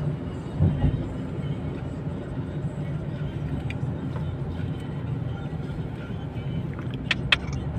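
Steady road and engine rumble heard from inside a moving car's cabin at expressway speed. A short low thump comes about a second in, and two sharp clicks come near the end.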